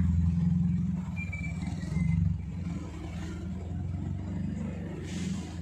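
Honda Cielo sedan's engine running with a low exhaust rumble as the car pulls away slowly, with a brief rise about two seconds in, then growing quieter as it moves off.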